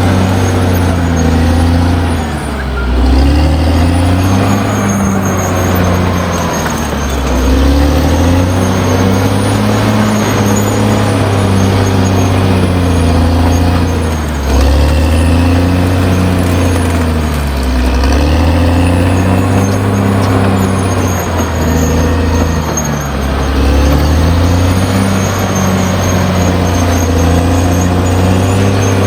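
Caterpillar D6R XL bulldozer's diesel engine running hard. Its pitch dips and climbs back every few seconds as it takes load and recovers.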